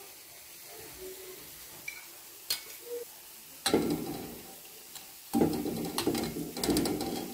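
Metal tongs clicking against a steel bowl, then, from about three and a half seconds in, a wet sizzling squelch as a hot, freshly fried jalebi is pushed down into sugar syrup.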